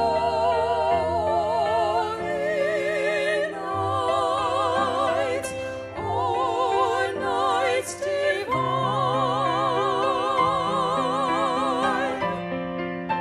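Slow, classical-style music: a melody of long notes held with wide vibrato over sustained keyboard chords, ending in a fading chord near the end.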